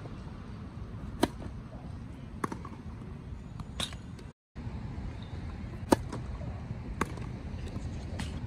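Tennis ball hit with racket strings: single sharp pops a little over a second apart, three before a brief dropout in the sound and three after, over a steady low rumble.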